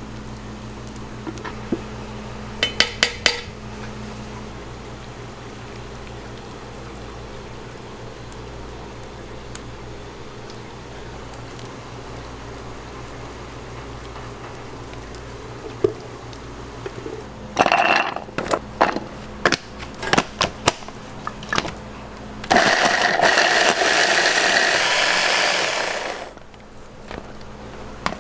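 Small electric food chopper running for about three and a half seconds, chopping cheese; shortly before it, a run of sharp knocks and clatter. A steady kitchen hum sits underneath.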